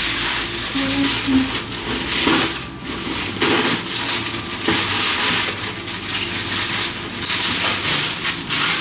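Packaging crinkling and rustling as new pots are unboxed, an irregular crackling noise with short pauses.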